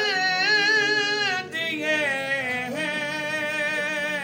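A man singing a line of an Urdu naat unaccompanied, drawing the syllables out into long held notes with a wavering ornament. There are two long phrases, the second starting about a second and a half in.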